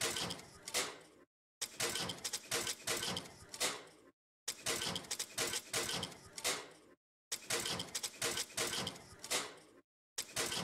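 A short sound effect of clicks and knocks, repeated four times, each run lasting about two and a half seconds with a brief silence between.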